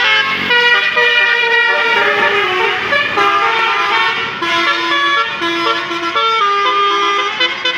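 A bus's basuri musical air horn playing a tune: loud horn notes step from one pitch to the next, several tones sounding together.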